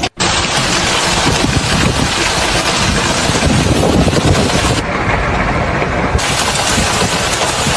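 Loud, steady engine noise.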